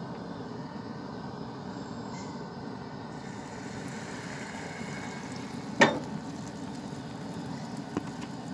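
Steady hiss from a Coleman two-burner propane stove heating oil in a cast iron skillet. A sharp metallic clank about six seconds in as the skillet is set back down on the stove's grate, and a lighter knock about two seconds later.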